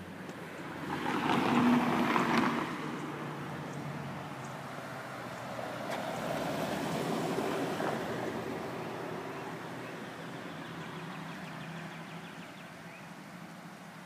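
A car passing on the street, its noise swelling loud and fading about two seconds in with a falling pitch, then a second, softer swell of traffic noise a few seconds later.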